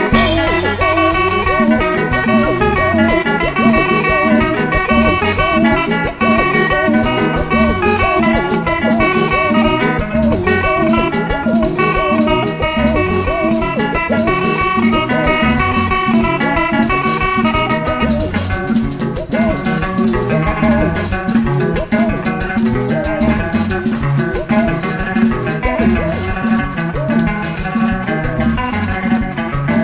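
Upbeat band music with guitar over a steady drum beat, for dancing in worship.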